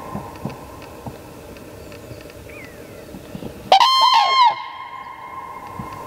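Common crane giving a loud trumpeting call of a few notes a little under four seconds in.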